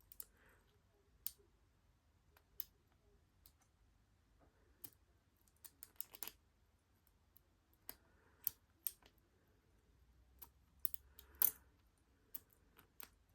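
Faint, irregular metallic clicks and ticks from a lock pick working the pin stack inside a Squire LN4 padlock, coming in scattered single clicks and short clusters.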